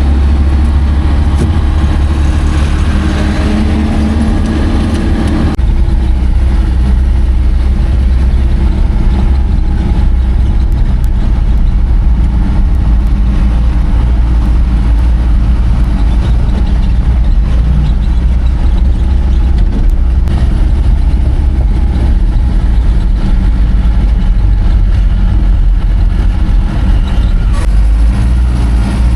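Truck engine running steadily, a heavy low drone, with some higher engine sound easing off about five seconds in.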